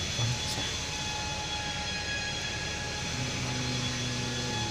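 A steady mechanical drone with a few constant whining tones, and a faint low hum joining about three seconds in.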